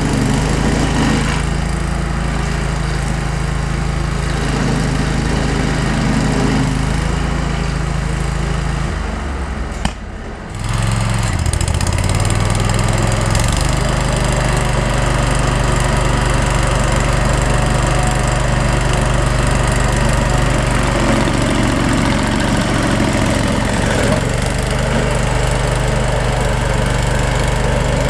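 Vermeer SC252 stump grinder's engine running steadily. About ten seconds in the sound briefly drops away, then the engine comes back with its pitch rising for a couple of seconds before settling again.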